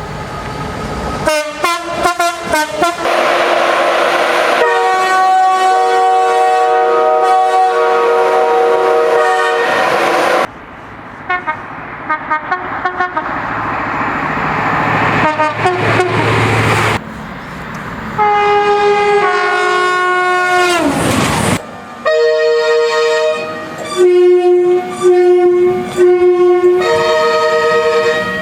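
Train horns from several recordings cut together, each sounding a chord of several notes in long and short blasts. In one, about two-thirds of the way through, the whole chord slides down in pitch as the train passes.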